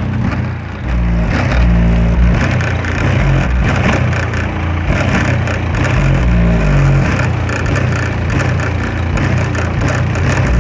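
PowerBass 1000 W RMS car subwoofer playing a bass-heavy music track loudly. Deep bass notes hold and change in steps, with the rest of the music over them.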